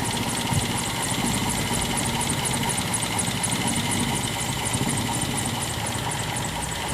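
Car engine idling steadily, with a fast, even, high-pitched ticking running over it, several ticks a second.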